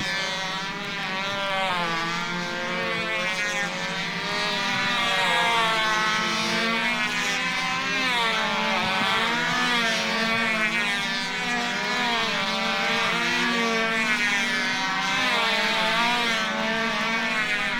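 Recorded sound effect of a motor engine running steadily, its pitch wavering slightly up and down.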